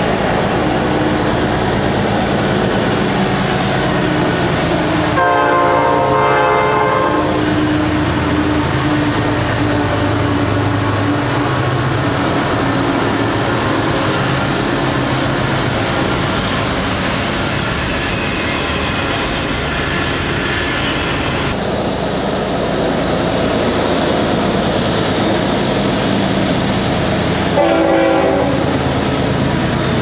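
CN diesel-hauled freight train passing close with a steady rumble of locomotives and wheels on the rails. Its multi-chime air horn sounds about five seconds in for two to three seconds, and again briefly near the end.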